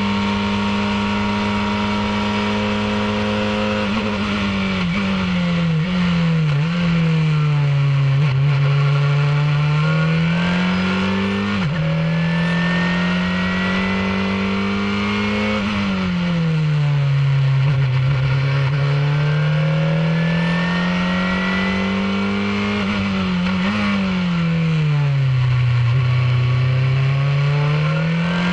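Formula 2000 race car engine heard onboard at racing speed. The engine note holds high, then drops and climbs back about three times as the car slows into corners and accelerates out, with quick jumps in pitch at the gear changes.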